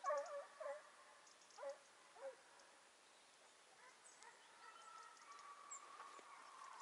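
Faint, distant hare-hunting hounds giving tongue on the trail: a few short yelping bays in the first couple of seconds, then a long drawn-out baying note from about halfway through.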